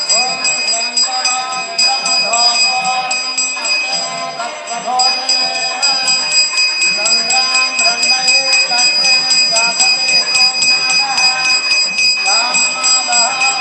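Brass hand bell (ghanta) rung continuously in rapid, even strokes, its steady high ringing running under a melodic line with sliding notes.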